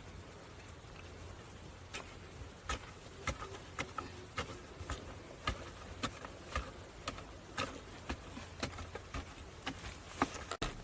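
A run of light, sharp taps, irregular at roughly one or two a second, starting about two seconds in and coming closer together near the end, over a faint low hum.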